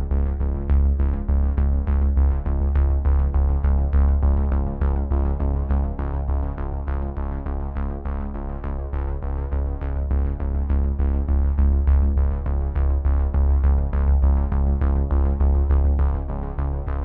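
Background electronic music: held synthesizer chords over a heavy bass, with a steady drum-machine beat.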